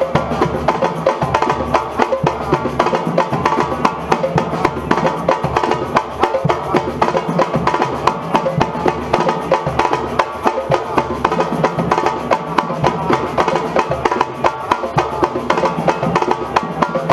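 Batucada percussion ensemble playing samba: many drums, bass drums among them, struck in a dense, steady rhythm.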